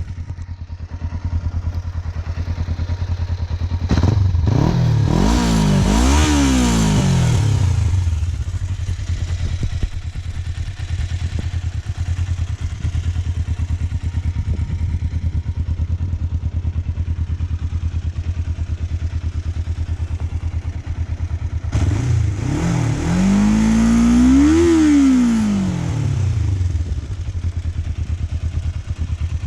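Kawasaki ER-5's 498 cc parallel-twin engine idling on its stock exhaust, revved twice with the throttle. Each time the pitch climbs for about two seconds, then falls back to a steady idle.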